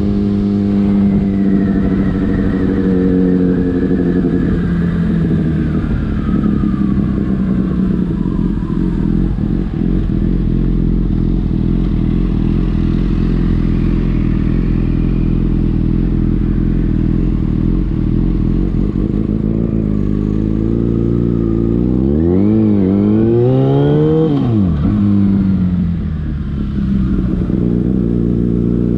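Yamaha FZ6 motorcycle's inline-four engine through a Leovince aftermarket exhaust. The revs fall away over the first several seconds, then it runs low and steady as if idling. About 22 seconds in it revs up sharply once and drops back, then climbs slowly again near the end.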